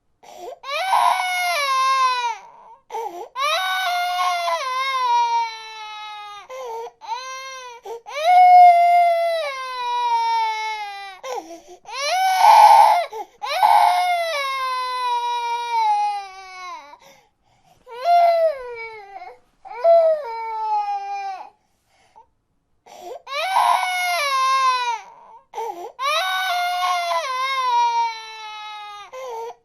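Baby crying: a long run of high wails, each falling in pitch, with short gaps for breath between them and a few brief pauses.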